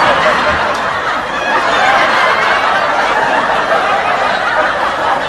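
Canned laughter: a crowd laughing loudly and steadily, a laugh-track sound effect.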